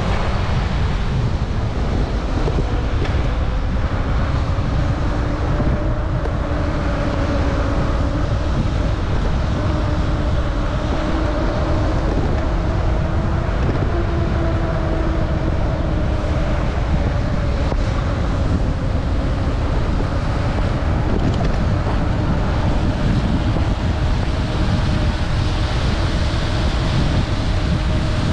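Wind rushing over the microphone of a moving bicycle, with a steady hiss of tyres on a wet road. Under it runs a low droning hum that wavers slightly in pitch.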